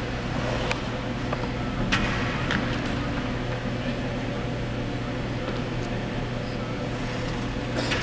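Steady hum of an ice arena's ventilation with indistinct talk from a hockey team huddled at the boards, and a few sharp clicks, the strongest about two seconds in and another near the end.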